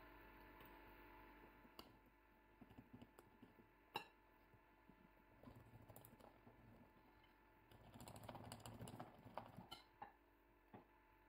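Faint clicks and scrapes of a wire whisk against a glass mixing bowl as flour is stirred into chocolate honey-cake dough, with one sharper clink about four seconds in and a run of quick clicks and scrapes near the end.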